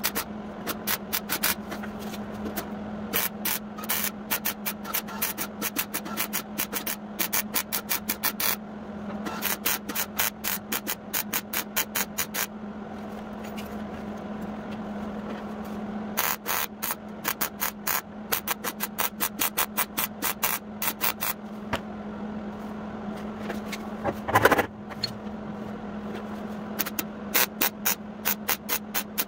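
Sheet-metal fabrication on a rust-repair patch panel: runs of rapid sharp strikes, several a second, over a steady low hum, with a quieter stretch in the middle and one louder burst about 24 seconds in.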